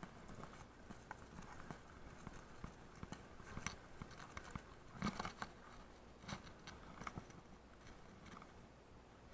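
Mountain bike tyres rolling over loose stones and gravel: faint, irregular crunching with scattered clicks and knocks of rock. The sharpest knock comes about five seconds in.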